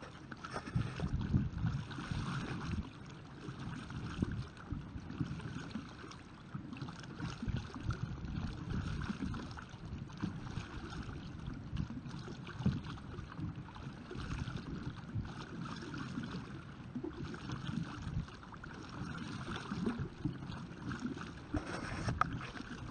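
Water splashing and lapping around a homemade pedal-driven kayak under way, its side paddle blades worked by a foot crank, with wind buffeting the microphone.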